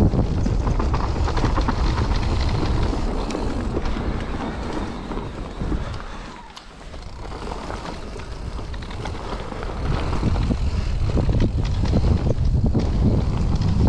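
Wind buffeting the microphone, with mountain bike tyres rumbling and the bike rattling over a dirt trail. The noise drops away for about a second midway as the bike goes over a jump, then builds back up.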